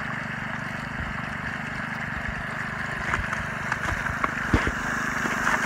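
Engine-driven water pump running at low idle, with water rushing through a mini highbanker sluice and pouring off its end into a puddle. A few sharp splashes come in the second half.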